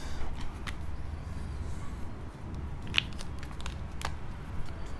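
Marker pen on a whiteboard: a few short taps and squeaks as numbers and lines are written, the sharpest about three seconds in and another about four seconds in, over a low steady hum.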